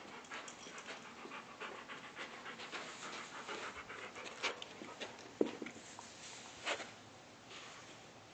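Dog panting rapidly at close range, with a few sharp knocks in the middle, the loudest about five seconds in.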